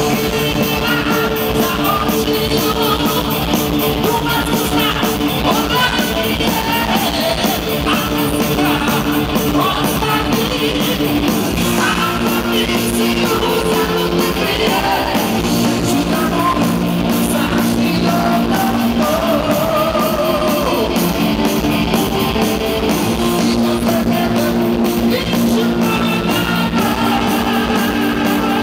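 A rock band playing live through a large concert PA: steady drums, electric guitars and sung vocals, recorded from within the audience.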